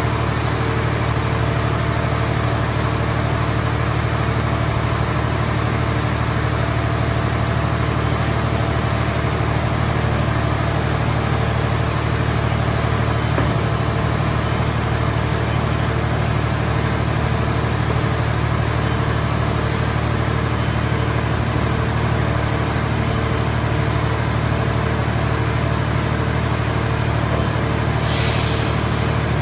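Hydraulic power unit of a mobile car-shell scrap baler running with a steady low drone, with a brief faint hiss near the end.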